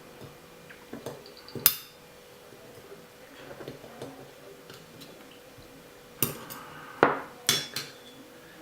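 Small metal tools clicking and clinking against the turbocharger's metal parts while the bearing's retaining ring (circlip) is worked out of the housing. There is one sharp ringing click about two seconds in, then a cluster of clicks near the end.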